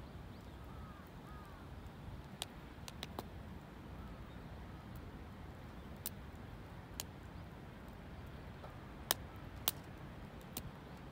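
Wood campfire crackling, with sharp pops at irregular intervals over a steady low background rumble. A few faint bird calls come in between.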